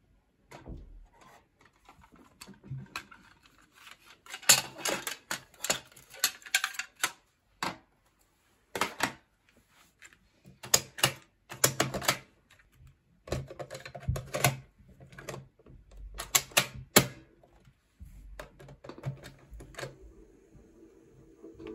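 Irregular clicks and clacks of hard plastic as cassette tapes and their cases are handled and the piano-key buttons of a vintage Fisher-Price cassette player are pressed.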